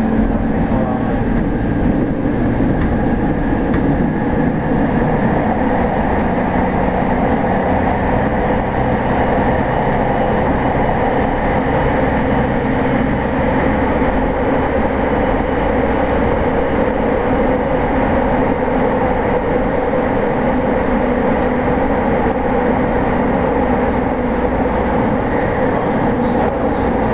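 The running sound of a Tokyo Waterfront Area Rapid Transit 70-000 series electric train car still fitted with its original, unrenewed inverter equipment, heard from inside the car. The train runs at steady speed, giving a continuous loud rolling noise with several steady hums underneath.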